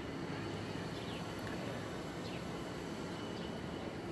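Outdoor ambience: a steady low background rumble with several short, falling bird chirps scattered through it.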